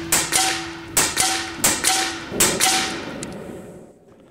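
Steyr LG110 High Power PCP air rifle firing five shots in quick succession, each heard as a pair of sharp cracks about a quarter second apart, with a faint ringing underneath. The shots end about three seconds in.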